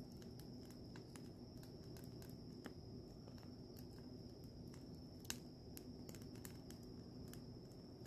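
Wood fire crackling faintly in a metal fire ring, with scattered small pops and one sharper pop about five seconds in. A steady high-pitched insect trill sounds underneath.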